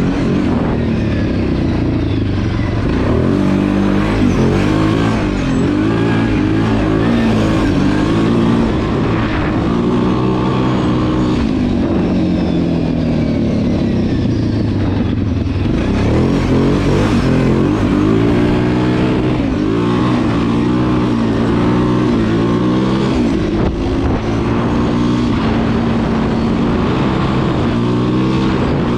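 Kawasaki KFX 700 ATV's V-twin engine under way, revving up and easing off again and again as the throttle is worked, with a short drop in revs about fifteen seconds in.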